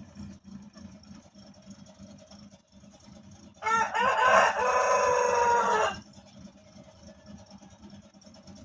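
A rooster crows once, a call of about two seconds that starts a few seconds in, over a low steady hum.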